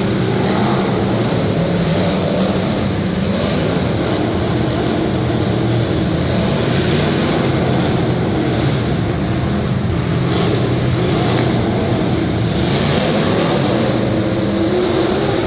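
Demolition derby cars' engines running and revving together, a loud, steady, continuous engine din.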